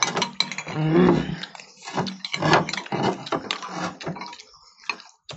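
Metal spoons clicking and scraping against glass bowls in quick, uneven strokes as two people eat fast, mixed with a voice.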